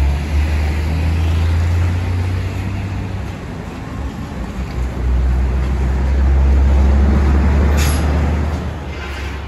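Low, steady engine rumble of heavy road traffic, such as trucks or buses, swelling twice over street noise. A brief sharp sound comes near the end.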